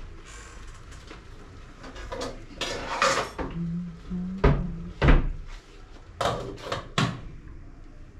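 Kitchen clatter: a series of sharp knocks and bangs, as of cupboard doors and crockery being handled, loudest about halfway through.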